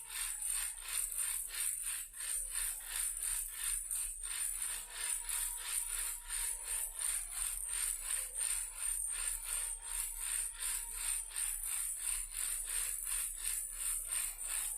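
Toy car shaken as a baby rattle, rattling in a steady rhythm of about three shakes a second.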